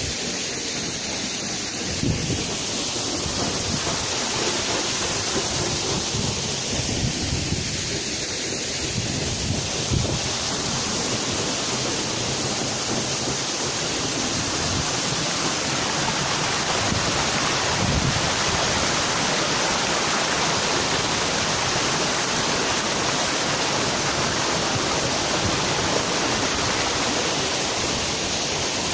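Waterfall: a steady, dense rush of falling water, with a few dull low bumps.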